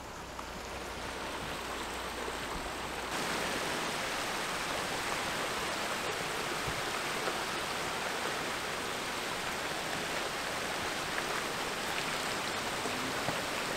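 Steady rush of flowing creek water, an even hiss that steps up louder about three seconds in.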